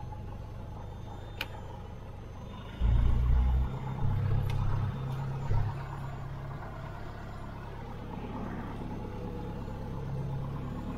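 Cessna 172's engine and propeller running steadily, heard inside the cockpit, with heavy low rumbles coming and going between about three and six seconds in.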